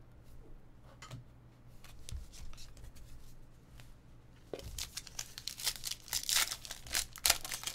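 A trading-card pack's wrapper being torn open and crinkled by hand. Faint handling clicks come first, and the crackling tearing starts about halfway through.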